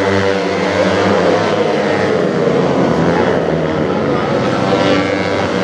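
Several Honda NSR50-type two-stroke racing minibikes running at high revs together, their engines buzzing at overlapping, shifting pitches as they race through the corners.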